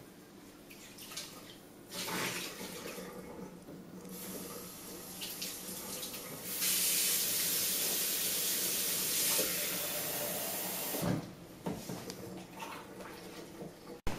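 Kitchen tap running into a sink during washing-up, the flow growing louder partway through and then shut off, followed by a few light knocks at the sink.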